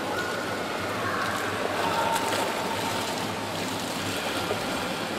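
Steady splashing and sloshing of swimming-pool water as a child swims.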